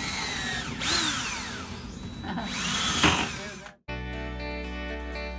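DeWalt cordless drill running in three short bursts against wood siding, its motor pitch rising and falling with each squeeze of the trigger. About four seconds in it cuts off suddenly and gentle guitar music takes over.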